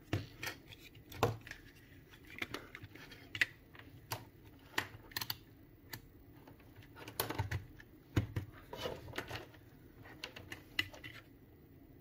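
Irregular light clicks and clacks of plastic parts and tools being handled on a workbench, including a multimeter's rotary dial being turned.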